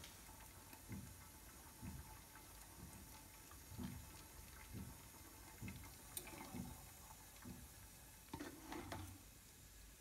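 Lever espresso machine pulling a shot, faint: espresso trickling into the cup under the portafilter, with soft low pulses about once a second and a slightly louder flurry near the end.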